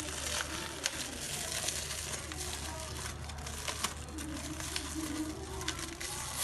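Soldering iron kit's packaging rustling and crinkling as it is opened and unpacked by hand, with a few sharp clicks.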